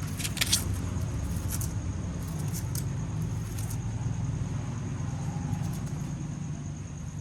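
Mouse squeaking: several short, high squeaks in the first four seconds, over a steady low rumble.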